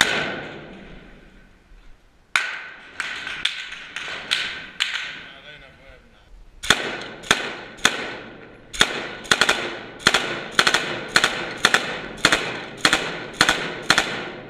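Rifle fired close by in single shots, each crack followed by a short echo. One shot, then five about half a second apart, a pause of about two seconds, then an even string of some sixteen shots at about two a second.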